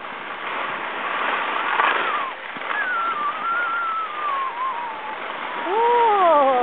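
Steady rushing hiss of skis sliding over groomed snow. A high voice sings or calls in long falling glides in the middle, and a louder drawn-out call rises and then falls near the end.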